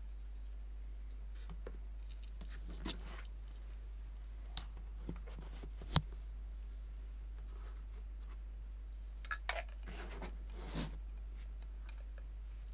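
A few short clicks and brief scraping rustles as hands handle the masking tape and cutting mat, the sharpest click about six seconds in, over a steady low hum.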